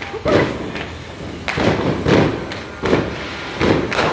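Firecrackers going off in a string of separate loud bangs, about six in four seconds at uneven intervals.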